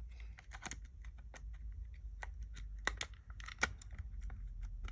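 Irregular small clicks and taps from handling a cordless hair clipper's cover and case while fitting them back together.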